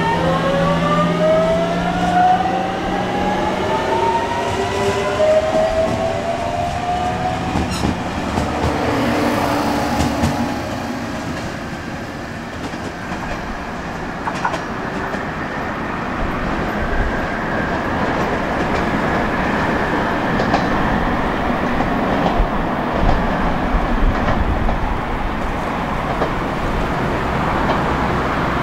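Electric train accelerating away: the traction motors' whine climbs in pitch over the first seven or so seconds. Then come the rumble of the cars rolling along the rails and the clatter of wheels over the rail joints.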